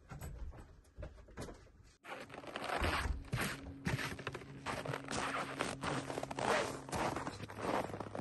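Footsteps crunching through snow at a steady walk, about two steps a second, after about two seconds of quieter knocks and shuffling.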